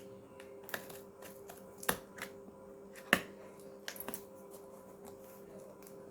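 A shipping parcel's packaging being torn and pulled open by hand: irregular sharp crackles and snaps, the loudest about three seconds in, over a faint steady hum.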